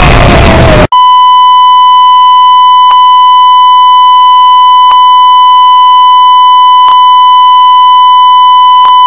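A loud rush of static-like noise cuts off about a second in. A very loud, harsh, steady test tone takes over, with a faint click about every two seconds: the off-air tone of a TV broadcast that has gone dead.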